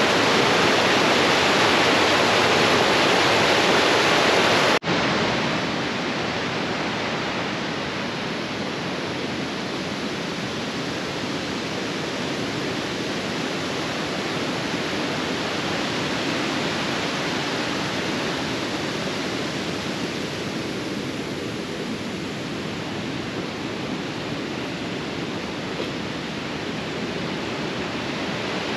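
Steady rushing of flowing water, like a mountain stream. It breaks off abruptly about five seconds in and resumes somewhat quieter.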